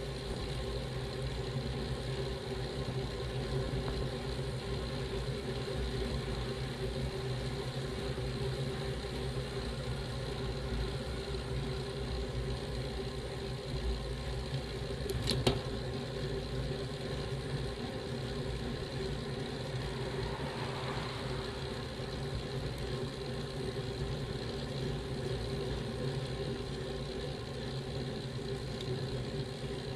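Steady drone of road, wind and riding noise picked up by a bicycle-mounted camera on a climb, with one sharp click about halfway through.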